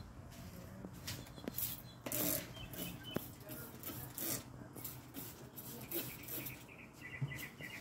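Plastic trigger spray bottle misting water over seedlings: a series of short hissing spritzes, spaced irregularly about half a second to a second apart.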